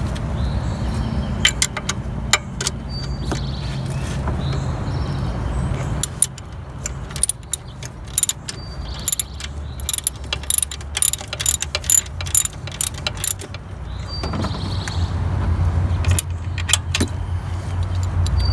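Socket ratchet clicking in quick runs, with a few clicks early on and a long series in the middle, as a 14 mm socket loosens the alternator pivot bolt. A low steady rumble runs underneath.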